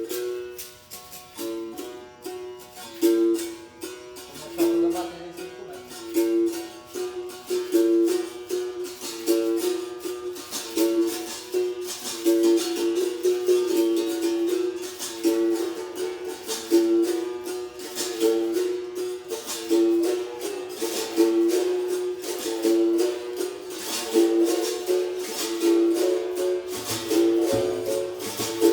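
Berimbau played with the stick and caxixi rattle in the capoeira Benguela rhythm: steady stick strikes on the wire, the note alternating between two pitches.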